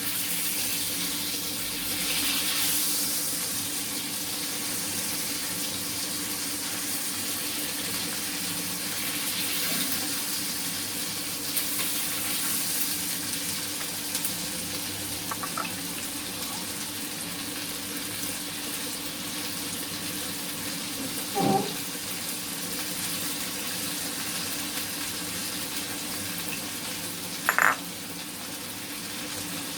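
Sauce-coated chicken breast pieces sizzling in a frying pan with oil and butter: a steady hiss, with two short, sharper sounds about two-thirds of the way through and near the end.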